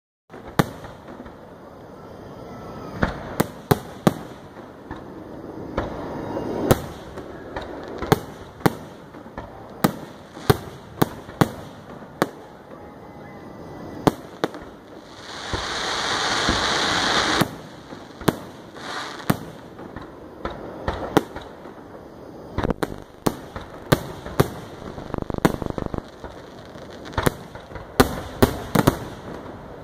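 Aerial fireworks shells bursting in a rapid, irregular series of bangs and booms. About halfway through comes a loud hissing rush lasting a couple of seconds, growing louder until it cuts off.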